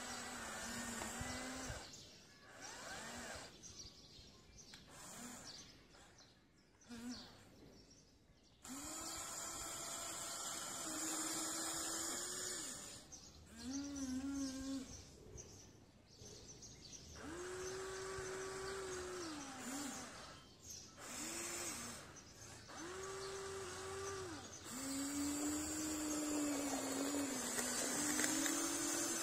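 Huina 1593 RC excavator's electric motors whining in repeated stretches of a second or several seconds as the boom and bucket move, each one ramping up and cutting off, with short quiet gaps between.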